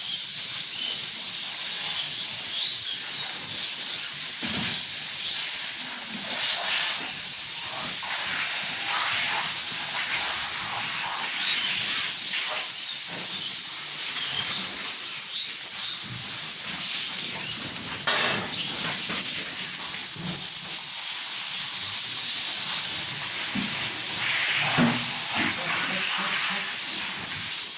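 Steady high-pitched hiss throughout, with faint voices now and then in the background.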